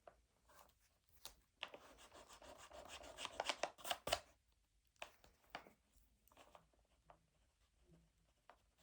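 Eraser scrubbing back and forth on paper in a quick run of strokes lasting about two and a half seconds, followed by a few light taps and clicks.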